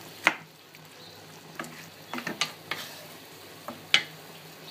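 Beef curry sizzling in oil in a nonstick pan as a wooden spatula stirs it. There are several sharp knocks and scrapes of the spatula against the pan: one just after the start, a few in the middle, and the loudest about four seconds in.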